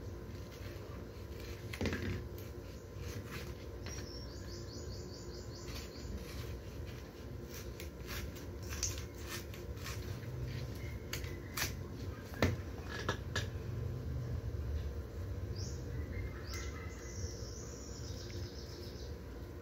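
Green banana hands being broken off the stalk and dropped on a tiled floor: scattered snaps and knocks, the loudest about halfway through. Short runs of high chirping come twice, and a steady low hum lies under it all.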